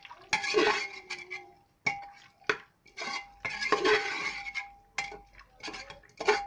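A spoon stirring beef and onion in an aluminium pressure cooker, scraping around the pot and clinking against its metal sides. Two longer scrapes and a string of sharp clinks, several of which leave a brief metallic ring.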